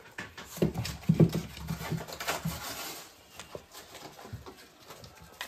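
Spaniel puppy scrabbling among rope toys on a hard floor: claws clicking and light thumps, busiest in the first half, then quieter.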